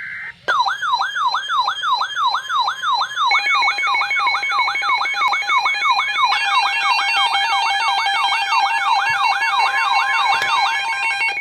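Weather alert radio alarm for a severe thunderstorm warning: a siren-like tone falling in pitch about three times a second, joined about three seconds in by a steady pulsing beep. The falling siren stops near the end while the beeping goes on.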